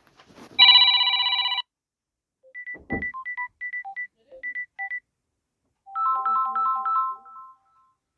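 Samsung Galaxy A30 ringtone playing from the phone's speaker. A short loud buzzy chord comes first, then a run of short high electronic beeps, and about six seconds in a quick phrase of bright repeated notes.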